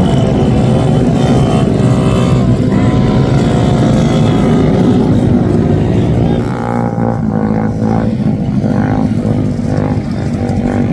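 Small motorcycle engines revving, the pitch rising and falling as the riders hold wheelies. About six seconds in the engine sound thins out and is mixed with broken bursts of sound.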